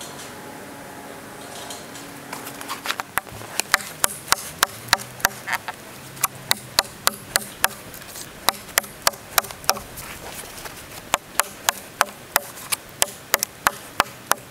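Large chopping knife biting into a dead log, sharp chopping strikes about two to three a second. They start a few seconds in, with a brief pause a little past the middle.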